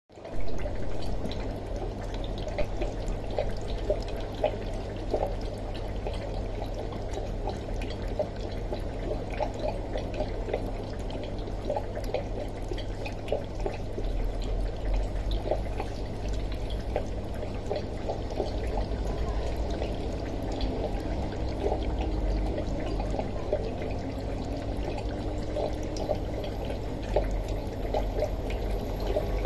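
Aquarium water trickling and bubbling steadily, with many small pops and drips over a constant low hum.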